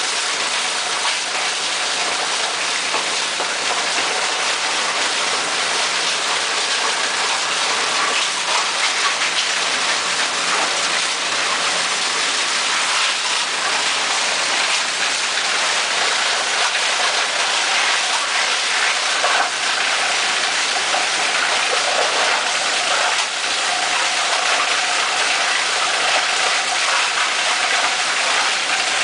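Belt-driven plastic shredder running and chopping scrap plastic fed into its hopper: a steady, loud rattling hiss of many small ticks from the plastic pieces, with a faint steady motor hum underneath.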